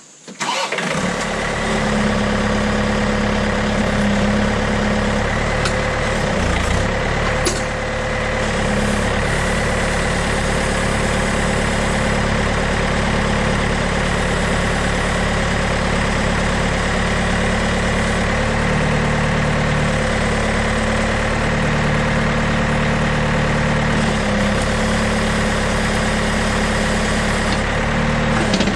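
John Deere 110 backhoe loader's diesel engine comes in abruptly just after the start and runs steadily, its low pitch shifting a little now and then as the machine works.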